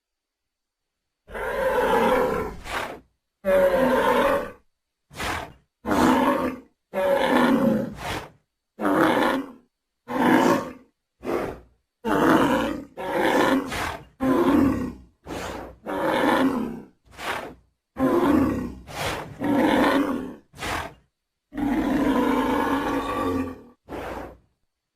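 Sound-designed creature vocalisations for Daeodon, the giant boar-like entelodont: a string of about twenty separate growls, grunts and roars, each cut off cleanly with silence between. The clips are of varied length, the longest close to two seconds, and they start after a short silence.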